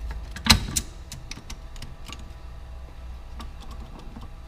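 Metal transmission parts knocking and clicking as they are handled: one sharp clank about half a second in, then scattered light clicks over a low steady hum.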